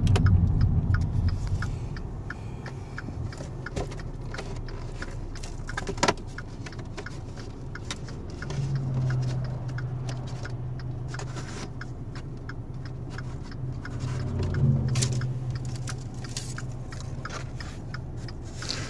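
A 2015 Dodge Dart coming to a stop at the roadside and idling with a steady low hum, while things are handled and rustled inside the cabin with scattered small clicks and one sharper click about six seconds in.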